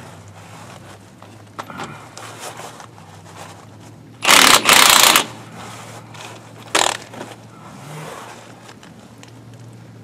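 Impact wrench run in two short loud bursts on a bulldozer bolt about four seconds in, and a shorter burst near seven seconds, with light clinks and scrapes of tools between, over a faint steady hum.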